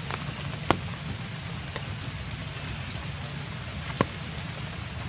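Steady rain falling, with two sharp taps about a second in and again near four seconds.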